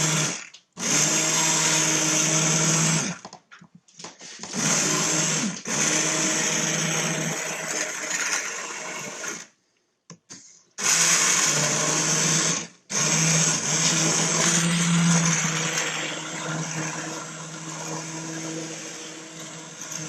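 Handheld immersion blender running in a pot of cooked red pepper and tomato soup, pureeing the softened vegetables in stock. It is switched on and off in several bursts with short pauses, a steady motor hum with a whirring hiss, and runs more quietly over the last few seconds.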